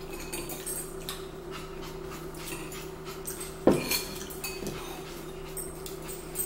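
Spoons clinking against ceramic bowls with small eating sounds during a meal of spaghetti and meatballs, over a steady low hum. One louder, short sound that falls in pitch comes nearly four seconds in.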